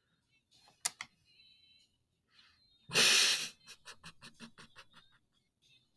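A light click about a second in, then a man's sudden breathy burst of laughter followed by quick breathy chuckles, about six a second, fading out.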